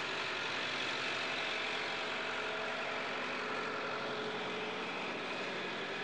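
Tractor engine running steadily under an even hiss, with no change in pitch or level.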